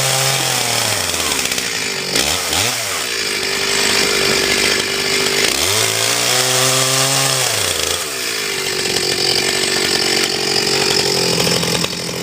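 Motor-driven cone log splitter running, its pitch dipping and recovering several times as the spinning cone bores into a log.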